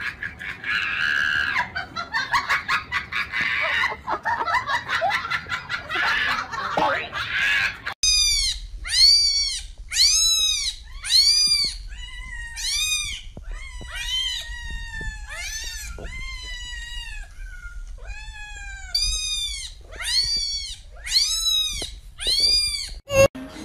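Domestic cats meowing again and again, about one meow a second, each rising then falling in pitch, with a pause of a couple of seconds partway through. Before the meowing starts, about eight seconds in, there is a dense, noisy jumble.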